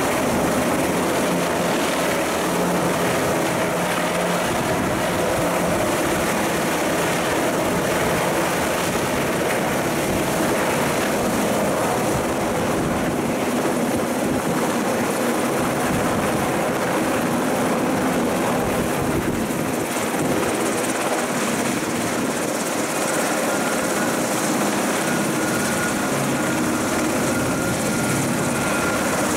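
US Coast Guard MH-60 Jayhawk helicopter's rotor and twin turbine engines running at a steady, loud level as it descends and sets down, with a faint high whine coming in near the end.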